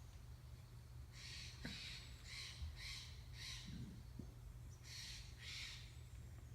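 A bird giving harsh, raspy calls in quick groups of two or three, with pauses between the groups, heard faintly over a low steady background hum.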